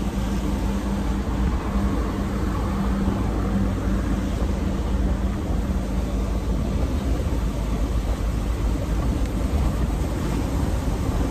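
Steady engine drone and road noise inside a moving truck's cab, with the tyres hissing on a rain-soaked highway.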